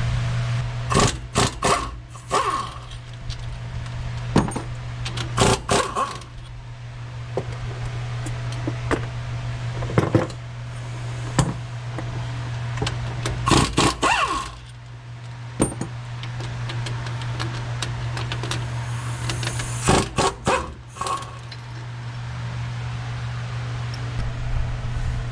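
Metal tools and axle parts clinking and clanking in short groups every few seconds during a rear differential teardown, over a steady low hum.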